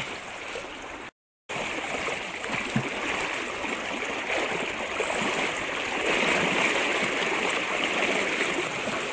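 Shallow, fast river water rushing and splashing around the legs of a person wading in the current; a steady rush with a brief dropout about a second in.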